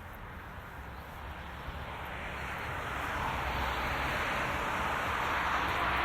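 Driving noise of a 2018 Toyota Auris Touring Sports 1.8 Hybrid under way: a steady low rumble with a road and tyre hiss that grows louder from about two seconds in.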